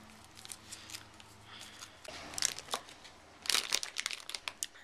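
Crinkly candy wrapper being handled and unwrapped, crackling in short bursts about two seconds in and more densely from three and a half seconds.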